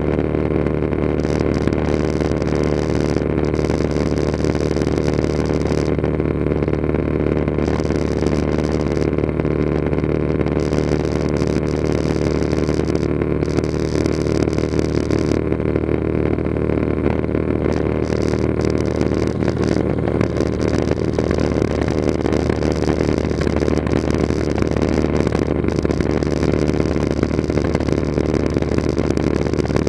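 Cessna 182RG's six-cylinder piston engine and propeller running steadily in flight, heard from inside the cabin as a constant low drone.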